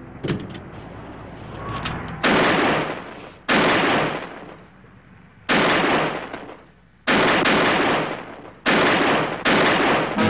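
Gunshots in an exchange of fire: about six sharp shots, irregularly spaced a second or two apart, each followed by a long echoing tail.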